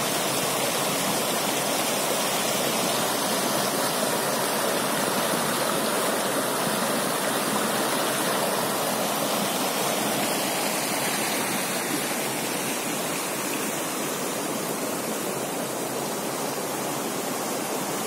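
Mountain stream rushing over boulders in small rapids: a steady, even rush of water, easing a little in level over the last few seconds.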